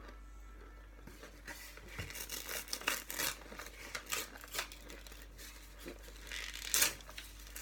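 Compressed cornstarch chunks crunching in a string of irregular, crackly crunches starting about a second and a half in, the loudest one near the end.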